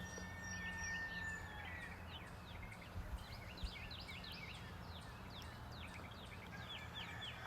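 A chorus of several birds chirping and calling, mostly short down-slurred chirps at about two or three a second, over a low steady hum. A long, even, high trill runs through the first second and a half.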